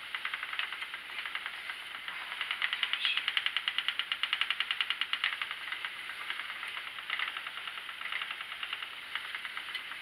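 Schacht Sidekick spinning wheel running steadily while chain-plying yarn: a fast, even ticking that grows louder from about two to five seconds in.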